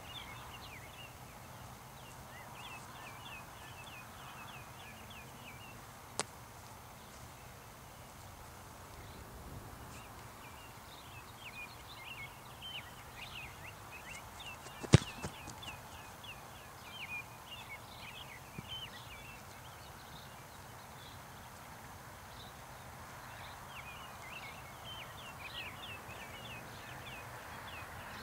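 Small birds chirping in quick runs of short, high notes that come and go, over a faint steady outdoor hum. A single sharp impact about fifteen seconds in is the loudest sound, and a fainter click comes at about six seconds.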